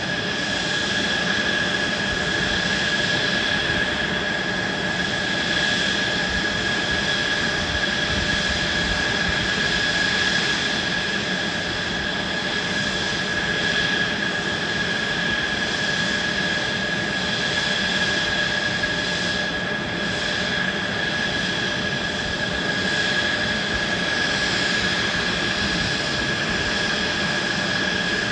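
Mitsubishi F-2 fighters' General Electric F110 turbofan engines running at ground idle: a steady jet whine, an even high tone over rushing noise.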